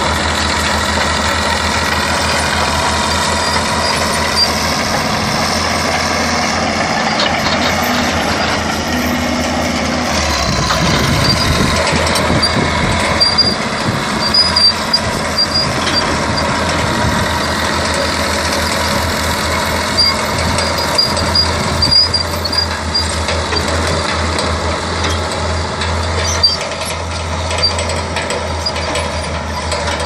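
Fiat-Allis 14-C crawler bulldozer's diesel engine running under load as it pushes and levels loose earth. Short clanks and squeaks from the steel tracks and blade come through now and then. It is a little quieter near the end.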